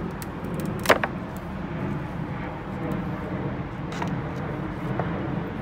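A few sharp knocks of wooden pallet slats being laid and stacked against one another, the loudest about a second in, over a steady low rumble.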